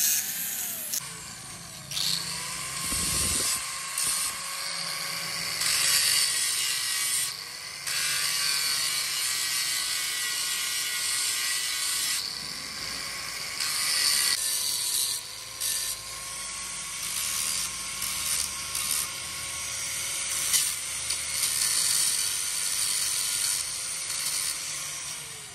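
Electric angle grinder grinding the steel teeth of a gear clamped in a vise, in repeated passes. The motor whine dips in pitch each time the disc bites and recovers between passes, under a harsh grinding hiss.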